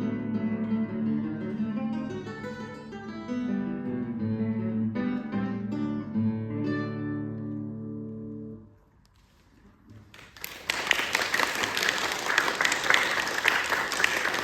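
Acoustic guitar playing the closing bars of a piece, its last chord ringing out and dying away about nine seconds in. After a short pause, audience applause starts up and carries on.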